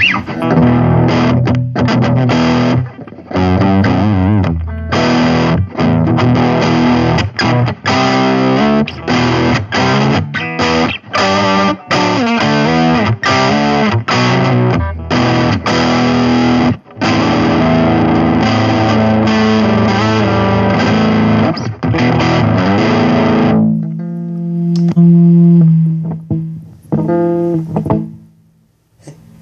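Electric guitar played loud through a Line 6 Spider IV 15 modelling amp on a distorted channel: choppy chords and riffs broken by short stops. About 24 seconds in, a chord is left ringing and fades away near the end.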